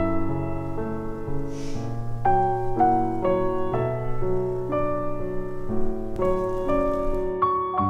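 Gentle background piano music, a slow melody of single notes over held lower chords.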